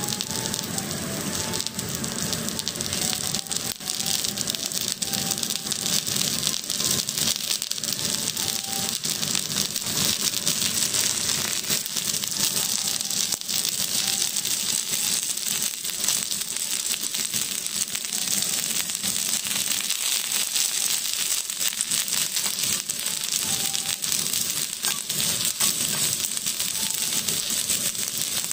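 Shiitake mushroom caps sizzling and crackling hard on a hot teppanyaki griddle: a dense, steady spatter of little pops over a hiss.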